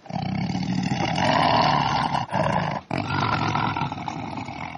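Tiger roaring: one long roar, a short one a little over two seconds in, then another long one, each separated by a brief break.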